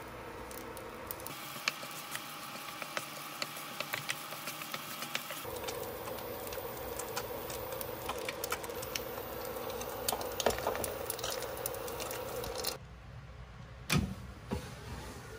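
Rice and then an egg sizzling in a hot nonstick griddle pan, with scattered crackles of spitting oil over a steady hum. Near the end come two sharp knocks as an air fryer basket is pulled out.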